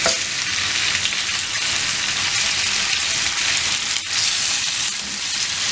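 Marinated chicken pieces sizzling steadily in butter and oil in a grill pan over a medium flame as they are turned over with a fork.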